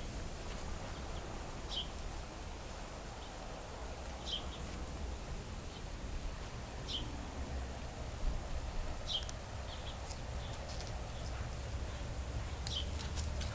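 Outdoor ambience: a bird gives a short, high, falling chirp every two to three seconds over a steady low rumble.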